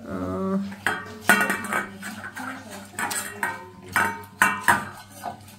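A starving dog eating ravenously from a steel bowl: the bowl clinks, clatters and scrapes against the floor in irregular knocks as the dog's muzzle pushes it around.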